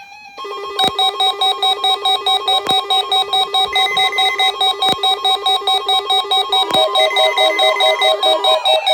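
Fast, repetitive electronic melody of pulsing tones, about ten notes a second, like a ringtone or chiptune loop, with a light hit about every two seconds. The notes shift to a different pitch near the end.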